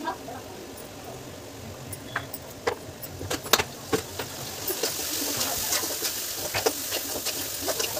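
Kitchen utensils and containers clinking and knocking as they are handled around a gas stove and a steel pan, a dozen or so sharp separate knocks. A steady hiss comes in about five seconds in and carries on under the clatter.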